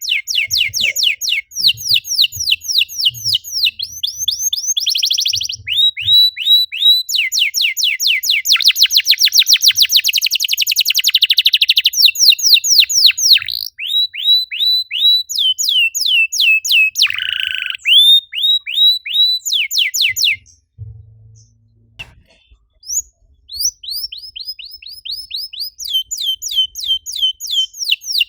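Domestic canary singing a long song of fast repeated notes and trills, with a dense rattling trill about 8 to 12 seconds in and a short pause just after 20 seconds.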